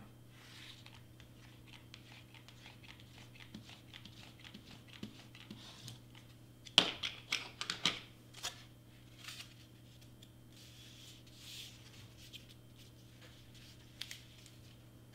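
Hot glue being laid on cardstock and the piece pressed down by hand: light clicks and paper rustles throughout, with a brief cluster of louder sharp crinkles and taps about seven seconds in, over a steady low hum.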